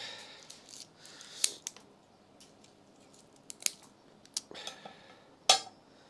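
Small scissors snipping through phalaenopsis orchid roots: several sharp snips, the loudest near the end, with dry rustling of the root mass as it is handled in between. The roots are being cut away because they have rotted.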